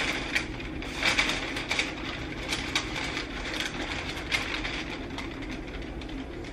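Paper rustling and crinkling in short, irregular bursts as sheets are handled and a wad of paper is wiped around a frying pan, over a steady low hum.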